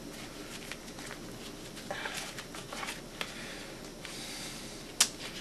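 Gloves being pulled onto the hands: crinkling rustle and light clicks, busiest around two to three seconds in, with one sharp snap about five seconds in.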